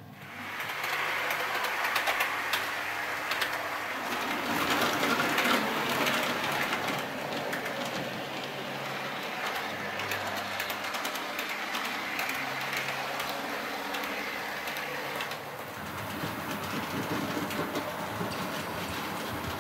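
Model train running along the layout track: a steady rushing whir with many small clicks of wheels over rail joints. It starts suddenly at the outset and runs on with a small dip in level about three-quarters of the way through.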